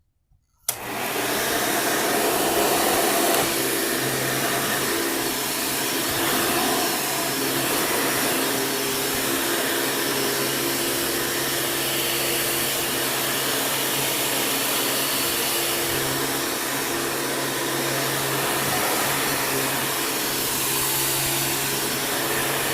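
Old Hoover commercial top-fill upright vacuum cleaner switched on with a click under a second in, then running steadily with a constant motor hum while vacuuming a rug.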